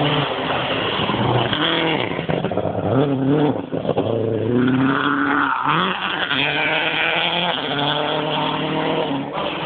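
Rally car engine revving hard as it accelerates out of a corner and past. The pitch climbs, drops at each gear change and climbs again, several times.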